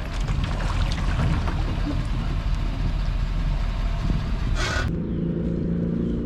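A loud, rough rumble that changes abruptly about five seconds in to the steady idle of the boat's 5.7-litre MerCruiser V8.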